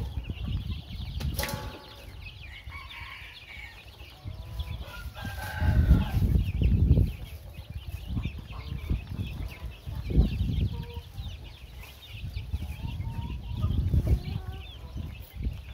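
A flock of young chicks peeping constantly in short, high chirps as they peck feed from a dish, with a few longer, lower chicken calls. Bursts of low rumble come and go, loudest about six to seven seconds in.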